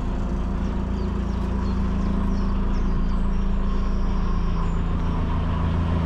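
Narrowboat engine running steadily as the boat passes close alongside, growing slowly louder.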